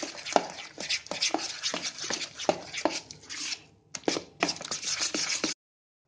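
A metal spoon beating thick semolina-and-curd batter in a plastic bowl, mixing in baking soda. Each stroke scrapes and clicks against the bowl, about three strokes a second. The beating stops briefly past the halfway point, starts again, and cuts off abruptly near the end.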